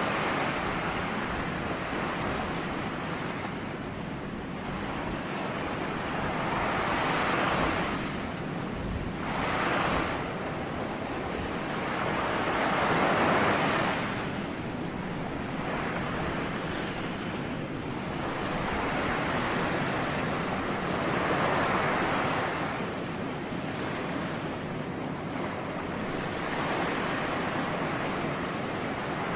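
Ocean waves breaking and washing on the shore, the surf swelling and fading every few seconds.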